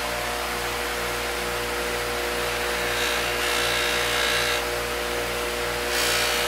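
Electric bench buffer with cotton buffing wheels running steadily with a motor hum and a low pulsing beat. A knife is pressed into the spinning wheel to polish it, adding a hissing rub about three seconds in and again near the end.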